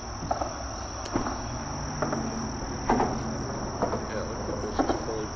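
Steady high-pitched insect trill, typical of crickets, with a few faint clicks.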